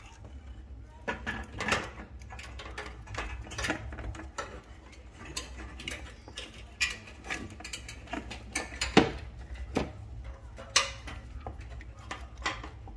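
Irregular metal clinks, taps and light scrapes as a replacement burner element is slid and fitted into place under the cooktop of a Samsung electric range.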